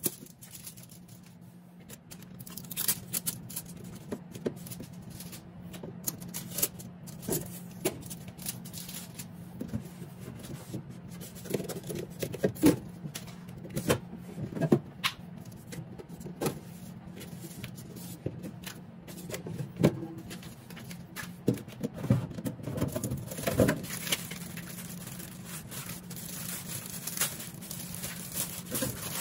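Plastic food containers and a plastic bag handled and set into a refrigerator's crisper drawer and shelves: irregular clicks, knocks and rustling, over a steady low hum.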